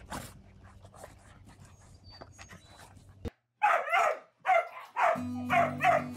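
A dog barking repeatedly, about two barks a second, starting about three and a half seconds in after a quiet stretch. Background music comes in near the end.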